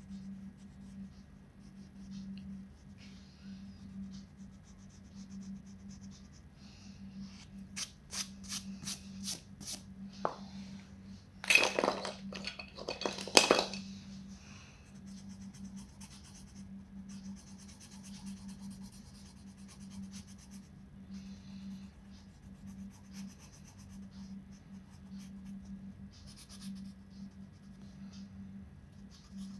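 Crayon and coloured pencil scratching on paper in short, repeated colouring strokes, over a steady low hum. About a third of the way in there is a quick run of sharp clicks, then a brief loud clatter as the brown crayon is set aside for a red coloured pencil.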